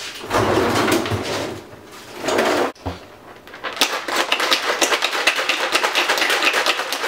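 A refrigerator-door ice dispenser runs in two short spells, dropping ice cubes into a plastic shaker cup. About four seconds in, the capped shaker cup is shaken hard, with the ice and its mixing ball rattling in a fast, even rhythm.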